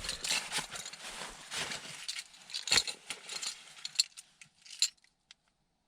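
Rustling and scattered sharp clicks of someone moving about and handling things inside a parked SUV while unlocking the doors. The sound drops to near silence about a second before the end.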